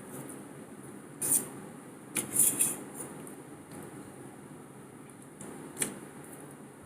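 Cutlery scraping and clinking on a plate while eating, in short bouts: one about a second in, a longer cluster around two and a half seconds in, and a sharp one near the end.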